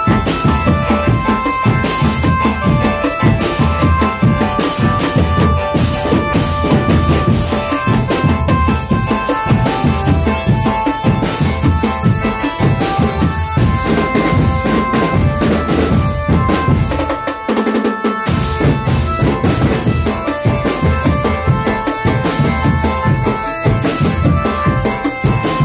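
Drumband music: drum kits, snare, tom and bass drums with cymbals playing a fast, busy beat, with a melody of short steady notes over the drums. The bass drums drop out for about a second about two thirds of the way through.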